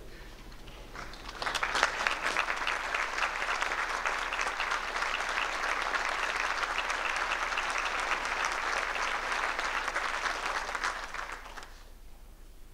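Audience applauding. The clapping starts about a second and a half in, holds steady and dies away near the end.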